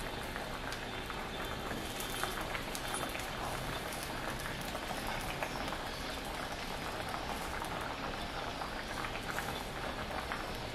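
Wet sauce and vegetables sizzling and bubbling in a hot stainless steel wok, with steady small crackles, as handfuls of fresh yellow noodles are dropped in.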